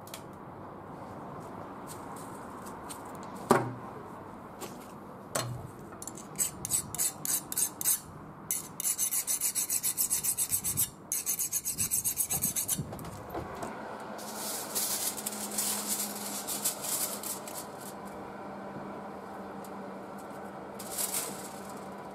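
A fine file scraped in quick back-and-forth strokes across a freshly quench-hardened carbon-steel knife blade, the file test of whether the hardening took. A sharp metal clank comes a few seconds in, then runs of rapid, even scraping strokes, about six a second at their fastest.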